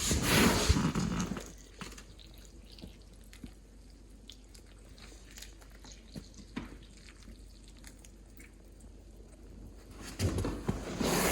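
Water poured into the soil of a freshly repotted plant for about a second and a half, then faint scattered drips and ticks as it soaks in. Louder knocks come near the end.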